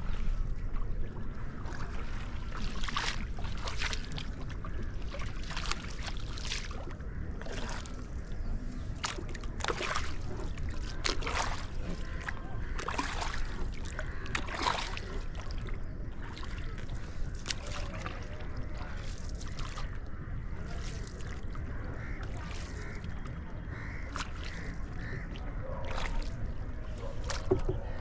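Rowboat on a lake: paddle strokes splashing in the water at an uneven pace, most of them in the first half, over a steady low rumble.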